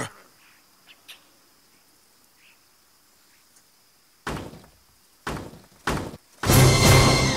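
Three heavy thuds, the first about four seconds in, the next a second later and the last just after, then a loud, deep, continuous sound starts near the end.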